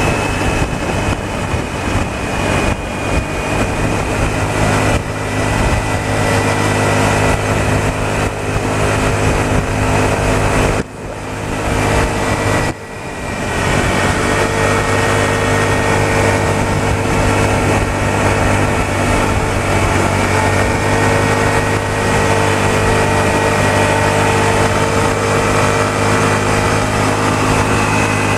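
Motorcycle engine running steadily under way, with wind rushing over the microphone. About eleven seconds in the sound drops off sharply twice in quick succession and builds back up each time.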